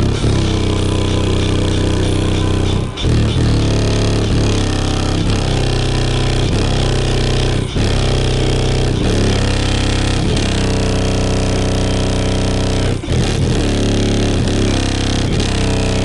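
Loud bass-heavy music played through a truck's car-audio system: Skar VVX 15-inch subwoofers on a CT Sounds 4000.1 amplifier, with the deep bass dominating and a steady beat. The amplifier is set to only about 835 watts.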